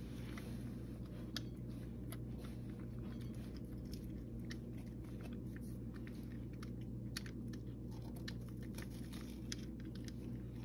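A domestic cat chewing food from a dish, with irregular crisp crunches and clicks of its bites, over a low steady hum.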